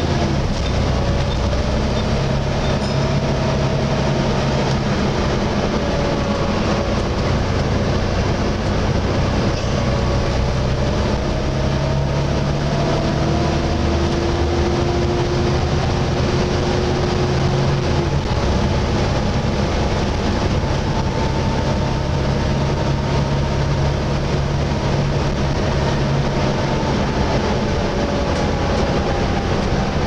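Volvo B7TL double-decker bus driving along, heard inside the bus. Its straight-six diesel runs with the loud, hoover-like whine of its cooling fan. The whine drifts slowly up and down in pitch over a steady engine drone.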